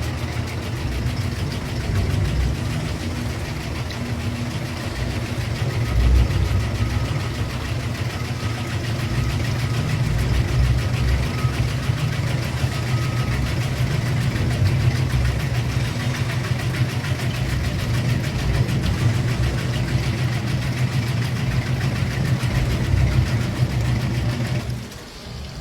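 Crab meat-and-shell separating machine running steadily: a motor hum with a fast, continuous rattle.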